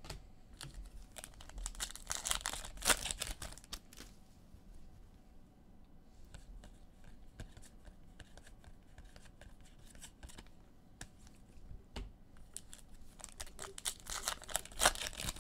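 Sports card pack wrappers being torn open and crinkled, in two bouts of a second or two: one about two seconds in and one near the end, with light clicks and taps between.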